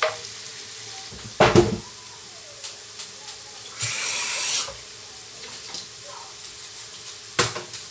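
Kitchen clatter at the stove: a loud knock about a second and a half in, a hiss lasting about a second near the middle, and another sharp knock near the end.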